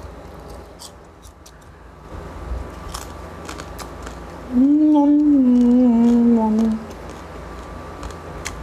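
A man chewing crispy roast pork skin, with small mouth clicks, then a closed-mouth "mmm" of enjoyment about halfway through, about two seconds long, its pitch wavering and then slowly falling.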